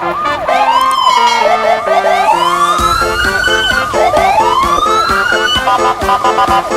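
Electronic siren-like sound effects: wails that rise and fall about once a second over quick repeated whoops, with a short run of notes stepping downward.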